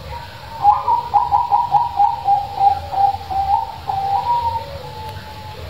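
Zebra dove (perkutut) cooing: a rapid run of short coos, about three a second, lasting some four seconds and ending in a longer drawn-out note.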